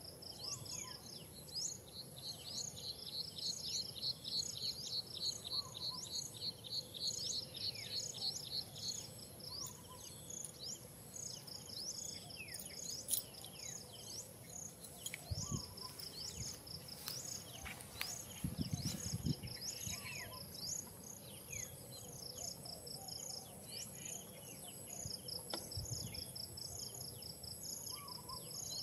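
Outdoor forest ambience: wild birds chirping and calling, with many short falling chirps and a rapid high pulsed trill of about four pulses a second, over a steady high insect drone. A few low thumps come in the middle and near the end.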